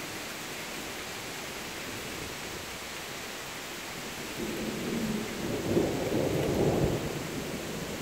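Rain falling steadily, with a low rumble of thunder that swells about four and a half seconds in and dies away about two seconds later.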